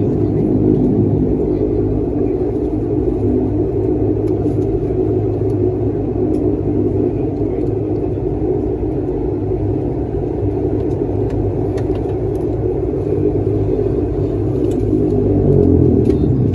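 De Havilland Canada Dash 8-100's twin turboprop engines and propellers droning steadily, heard from inside the cabin. The drone swells slightly and shifts in pitch near the end.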